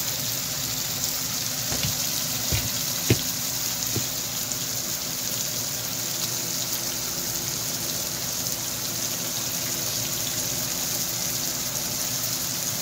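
Chopped peppers, onion and tomato sizzling in oil in a frying pan, a steady hiss. There is a sharp click about three seconds in, with a couple of fainter knocks around it.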